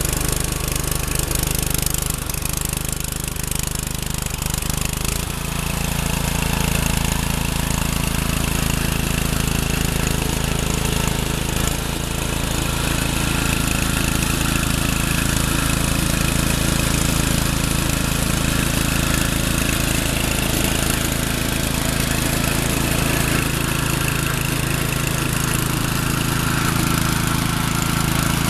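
Snapper rear-engine riding mower's engine running steadily, picking up speed about five seconds in as the mower is driven.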